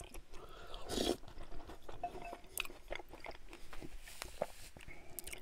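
Close-miked eating sounds: wet mouth smacks, clicks and sips as creamy mushroom soup is taken from a wooden spoon. A paper napkin rubs across the mouth about four seconds in.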